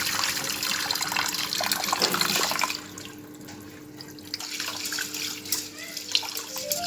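Kitchen tap running water into rice being rinsed. The water is shut off about three seconds in, leaving quieter sloshing and small clicks as the rice is swirled in the water.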